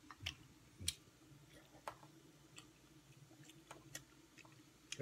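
Near silence: faint room tone with a low steady hum and a handful of soft, scattered clicks.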